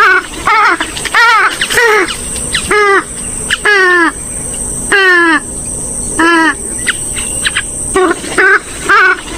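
Played-back calls of a gallinule-type waterbird (swamphen or moorhen group): a series of about ten loud calls, each sliding down in pitch, several with a fast quaver. A faint steady high-pitched whine runs under them.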